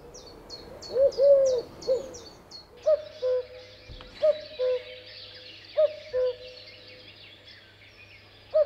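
A bird giving a low 'woof woof woof' call, three notes about a second in. Then, from about three seconds in, a phone's clock timer alarm sounds a falling two-note tone that repeats about every one and a half seconds, very like the bird's call.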